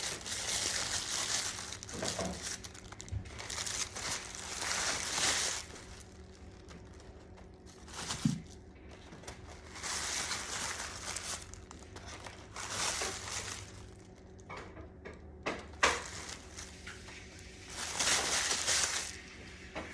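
Wrapping on individually wrapped fruit crinkling in repeated bursts of a second or so as it is handled and pulled off by hand, with a few sharp taps in between.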